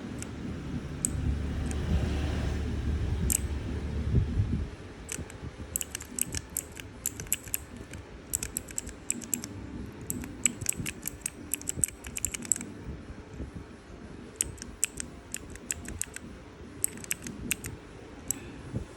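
Mechanical keyboard switch keychain being pressed over and over, giving sharp clicky key presses in quick bursts with short pauses between them. It opens with a low rumble of handling noise and only a few single clicks.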